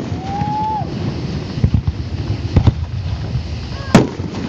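Aerial fireworks shells bursting at a display: sharp bangs about two and a half seconds in and again near the end, over steady wind noise on the microphone. A short whistle sounds just after the start.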